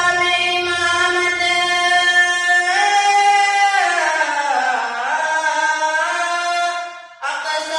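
A boy singing a naat unaccompanied, holding long drawn-out notes with a slow slide down in pitch in the middle of the phrase. The voice breaks off briefly near the end for a breath, then the next phrase begins.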